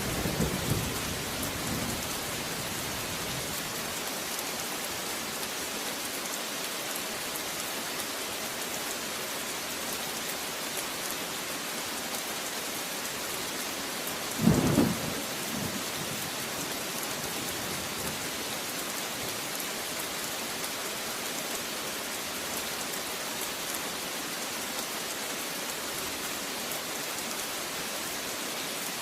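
Steady rain hissing, with a low thunder rumble dying away over the first couple of seconds. About halfway through comes a short, loud clap of thunder.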